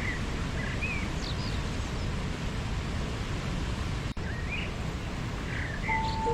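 Steady rush of a waterfall with short bird chirps scattered over it. There is a brief dropout about four seconds in, and a held musical tone comes in near the end.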